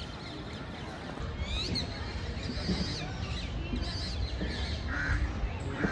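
Birds calling with short chirps and squawks over a low, steady rumble.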